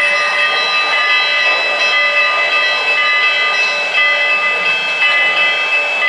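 O-gauge model train running on a three-rail layout: a steady, even rushing noise with several high tones held steady throughout.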